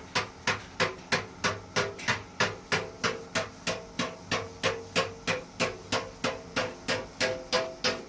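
Steady, even hammer blows on metal, about three a second, each with a brief ringing tone.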